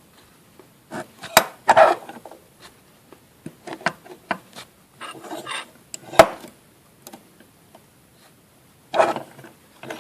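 Metal clanking and scraping of a drill press vise being loosened and tightened on a thin metal computer slot cover bent around a screwdriver. Two sharp knocks, about a second and a half in and again about six seconds in, stand out among shorter rattles and scrapes.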